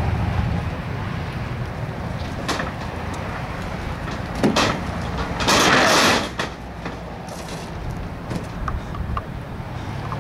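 Wrestlers' bodies hitting the ring mat: a sharp thump about four and a half seconds in, then a louder noisy crash lasting nearly a second, over a steady low rumble of outdoor traffic and wind.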